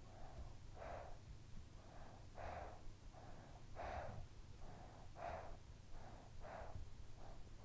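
A sleeping child breathing quietly and evenly, about six in-and-out breaths, roughly one every one and a half seconds, each a softer draw followed by a slightly louder, breathier one.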